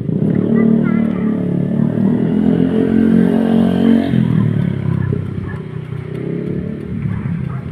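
A motor vehicle's engine running close by, starting suddenly, loudest for the first four seconds, then dropping somewhat.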